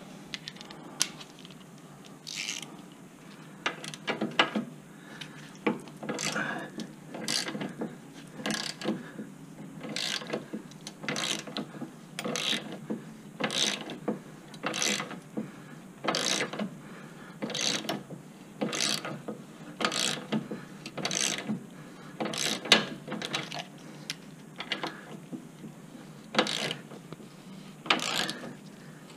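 Hand ratchet wrench worked back and forth to run a bolt the rest of the way in, with a short rattle of pawl clicks on each back-swing, roughly one stroke a second, pausing now and then.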